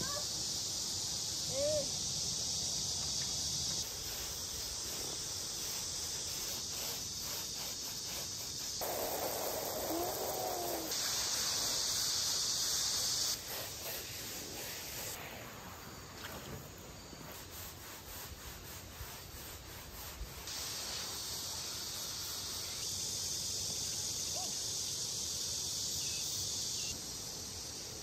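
A steady, high-pitched chorus of summer insects in the yard. Its loudness steps up and down several times as the footage cuts between scenes.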